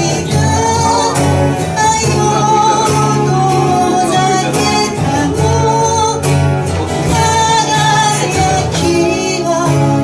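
A woman singing a slow pop ballad live, accompanied by acoustic guitar and keyboard.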